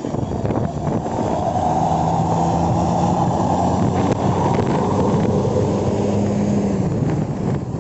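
Intercity bus driving past, its diesel engine running under load with a steady low drone that eases off near the end.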